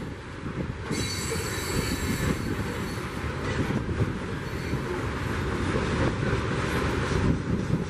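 CSX freight train's coal hopper cars rolling past: a steady rumble and clatter of steel wheels on rail, with a high-pitched wheel squeal starting about a second in and dying away a little over a second later.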